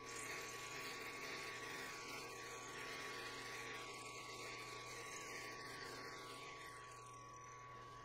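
Benchtop mill-drill running a 12 mm end mill held in an R-8 collet, cutting a metal block as the table is fed by hand. A steady high motor whine sits under a rough cutting noise that eases a little near the end.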